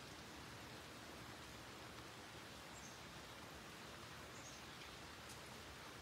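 Faint, steady hiss of light rain falling on leaves and plants, with a couple of faint, high bird chirps about three and four and a half seconds in.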